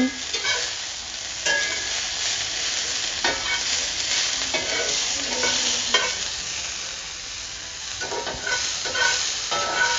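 Diced onion and bell pepper sizzling as they sauté in a cast-iron skillet, with a metal spatula scraping and stirring them in irregular strokes every second or two.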